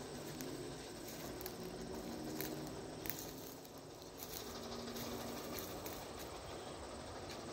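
Quiet woodland ambience: a steady faint hiss with insects buzzing and scattered small ticks.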